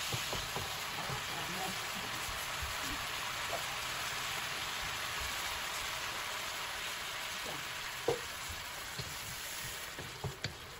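Butternut squash and bok choy sizzling in a hot wok with a steady frying hiss, stirred with a wooden spatula. The spatula knocks against the wok about eight seconds in and a few times near the end.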